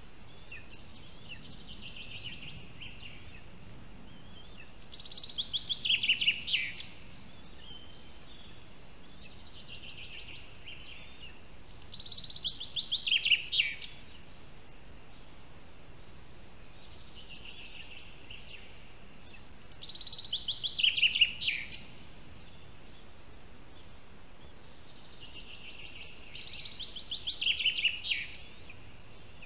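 A songbird singing the same short song four times, about every seven seconds: each is a fast trill ending in a falling flourish. Fainter, softer phrases come between the songs, over a steady forest hiss.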